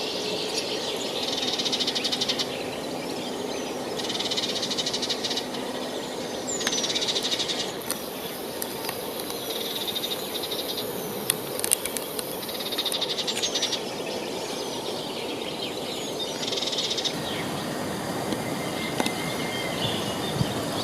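Steady rush of a forest river, with short high trills repeating every couple of seconds and a few bird chirps over it. A thin high hiss joins in for several seconds in the middle.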